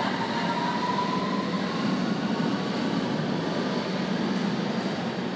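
London Underground S7 Stock train pulling out of the platform and accelerating away. Wheels and running gear rumble steadily under a thin motor whine that rises slowly in pitch over the first second or so. The sound begins to fade near the end as the train enters the tunnel.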